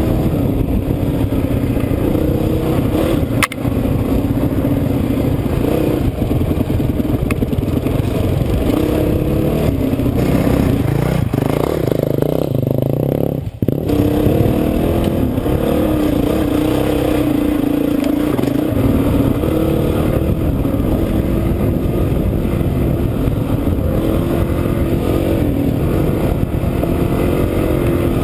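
Off-road motorcycle engine running under the rider, its note rising and falling with the throttle, with dirt and clatter from the trail. The engine sound turns rough for a couple of seconds just before the middle and drops out briefly.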